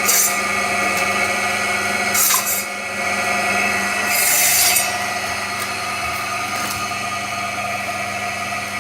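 Electric meat band saw running with a steady hum, its blade cutting through chicken pieces in three short hissing passes: at the start, about two seconds in, and a longer one about four seconds in.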